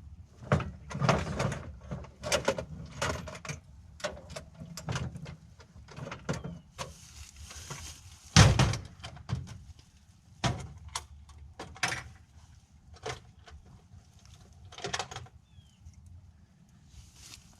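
Tool cases and tools being rummaged through in a search for a socket set and a 1/4 inch ratchet: a string of irregular clacks, knocks and rattles, the loudest knock about eight seconds in.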